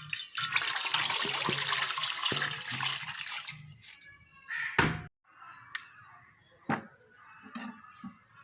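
Water running and splashing for about three seconds, then a sharp knock and a few lighter clicks.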